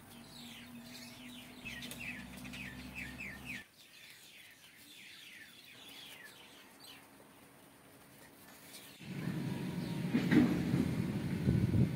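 Small birds chirping: a quick run of short, falling notes, fainter after about three and a half seconds. About nine seconds in, a louder low rushing noise takes over.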